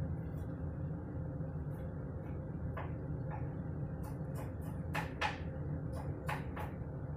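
Light clicks and taps from handling roasted bell peppers in a plastic bowl over a steady low hum, with two sharper clicks about five seconds in.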